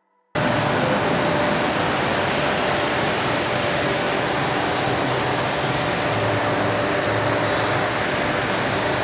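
Steady hiss and hum of stone-workshop machinery, starting abruptly less than half a second in and holding even throughout, with a faint steady tone under the noise.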